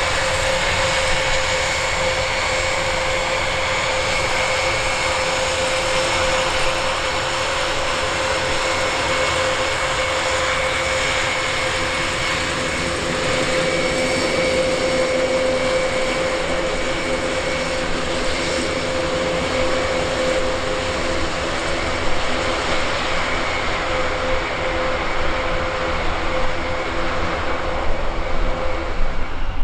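The four TP400-D6 turboprop engines of an Airbus A400M Atlas running steadily at taxi power, a loud even drone with a steady high whine over it.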